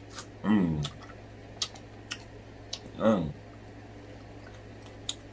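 Close-miked eating of a king crab leg: wet mouth clicks and smacks as the meat is bitten and sucked from the shell, with two short hummed vocal sounds that fall in pitch, about half a second and three seconds in.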